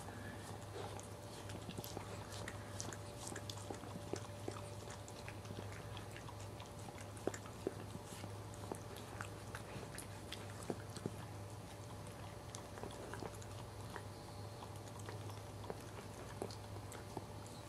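A Cairn terrier mother licking and chewing at a newborn puppy's amniotic sac to free it after birth: faint wet licking and scattered sharp little clicks of tongue and teeth, over a steady low hum.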